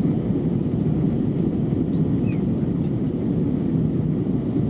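Steady low roar of an Airbus A320 airliner's cabin in flight, the engine and airflow noise heard from a window seat over the wing as the plane descends to land.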